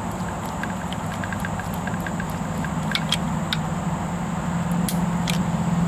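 Screwdriver turning the nut at the centre of a septic air pump's new rubber diaphragm: a run of small light clicks, then a few sharper metallic clicks, over a steady low mechanical hum that grows a little louder near the end.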